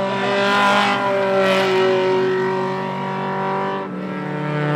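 Race car engine running hard through a corner, a steady, strong engine note that dips a little in pitch after the first second and a half, with two short rasping flares early on. The note changes to a different pitch near the end.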